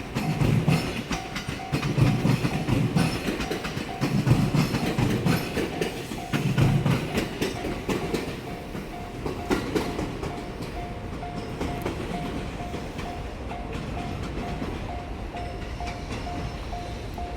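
Train crossing a Japanese railway level crossing: its wheels thump over the rail joints in heavy groups for the first seven seconds or so, then fade to a steadier rumble. Throughout, the crossing's electronic warning bell rings in a regular pulse.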